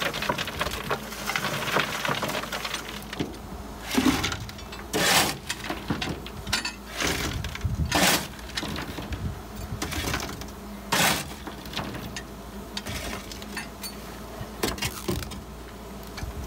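Lumps of coal clattering: a bucketful poured into a steam locomotive's coal bunker, then lumps picked up by hand and dropped into a bucket, giving a string of separate knocks and rattles.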